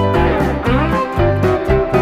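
Background music: guitar-led instrumental with a steady bass line.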